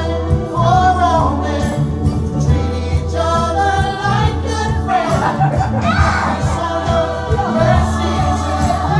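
A song with several voices singing together over instrumental backing with a steady bass line.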